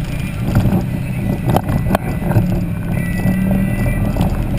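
Polaris RZR XP side-by-side's engine running steadily as it drives a rough dirt trail, with a few sharp knocks about one and a half to two seconds in.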